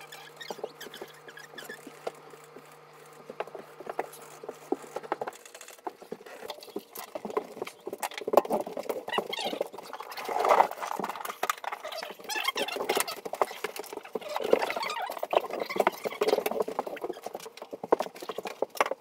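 Dense, rapid clicking and clattering of hands-on work in a house, getting louder after the first few seconds, over a steady low hum that stops about five seconds in.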